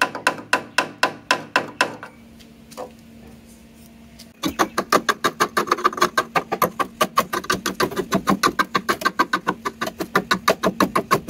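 Rapid hammer taps on a Vespa PX150 scooter's rusted sheet-steel body, each a short metallic clink. They come about four a second, stop for about two seconds apart from one lone tap, then resume in a longer, faster run of about six a second.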